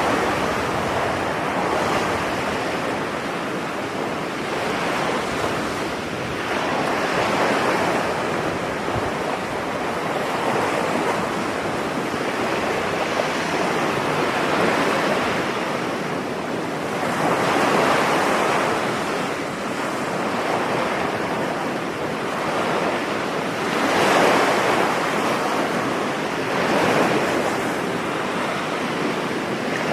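Ocean waves breaking and washing on a beach: a continuous rushing surf that swells with each wave every few seconds, loudest about three-quarters of the way through.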